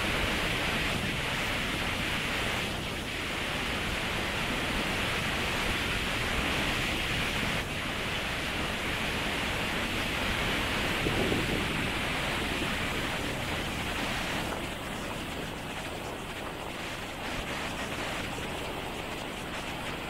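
Steady rush of falling water from the Katarraktis twin waterfalls on Mt. Tzoumerka, an even hiss that eases slightly about two-thirds of the way through.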